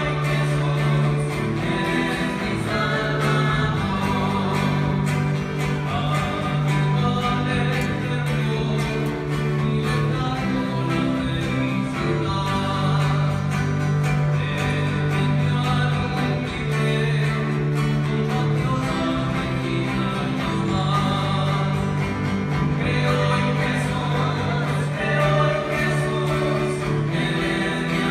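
A church congregation singing a hymn together, with instrumental accompaniment under the voices.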